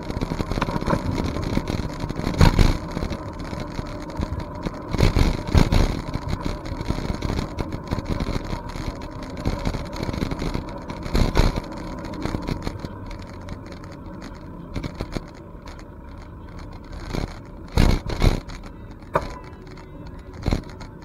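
Riding noise from a bicycle on a paved trail: steady wind and rumble on the microphone, with a handful of sharp knocks and rattles, two close together near the end.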